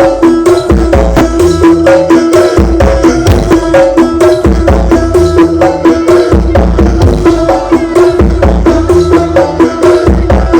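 Very loud music from a carnival sound-system rig ('sound horeg'), with heavy pulsing bass under a fast, busy drum beat.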